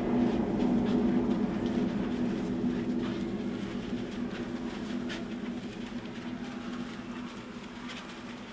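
Steady low droning hum of several held tones, slowly fading.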